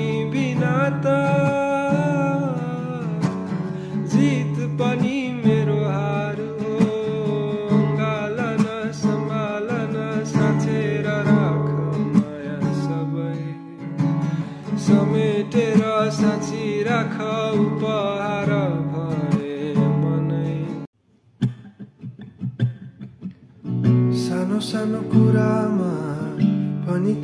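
Acoustic guitar playing with a sung vocal melody, drenched in added reverb. About 21 seconds in the song ends, there are a couple of seconds of near quiet, and then the guitar and voice start the next song.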